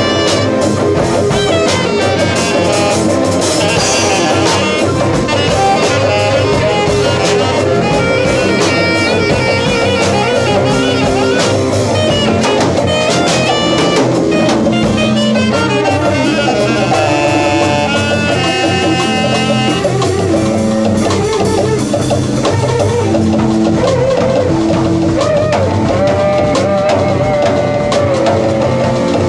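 Live band playing jazzy music: a drum kit, electric guitar and saxophone playing together, loud and continuous.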